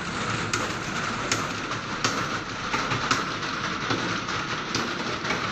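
Many computer keyboards clattering at once, a dense, steady patter of key clicks from a roomful of typists.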